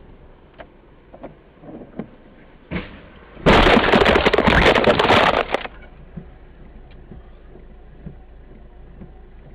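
Car crash heard through a dash cam inside the cabin: over low road noise, a loud crash about three and a half seconds in, with crunching and clattering that lasts about two seconds, then low noise again.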